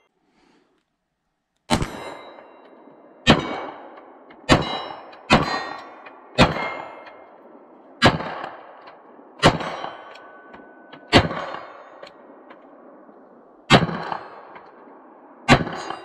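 Ten shots from a 9mm Glock 34 pistol with a ported barrel, fired at an uneven pace about one to two seconds apart. Each shot is followed by the clang of steel targets being hit and an echoing tail.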